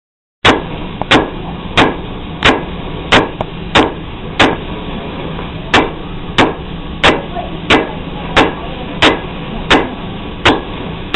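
Blacksmith's hammer striking hot meteoric iron on an anvil, beating it into a bar. Even, ringing blows about one and a half a second start about half a second in, with a short pause near the middle. A steady low hum runs underneath.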